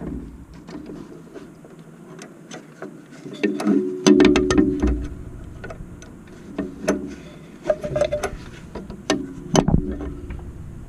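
Irregular metallic clicks, taps and knocks of hand tools and fittings during brake-line work, with a dense flurry about four seconds in and more near the end.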